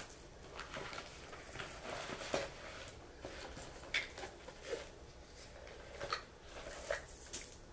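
Soft rustling and a few light knocks of a small faux-leather handbag being handled, with hands reaching inside it.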